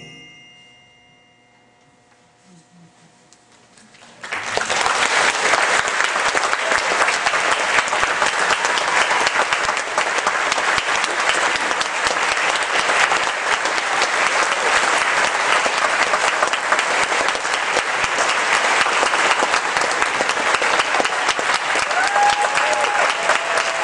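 The last notes of a wind ensemble's closing chord, with bells ringing, die away into a hushed concert hall. About four seconds in, the audience breaks into loud, steady applause that keeps going.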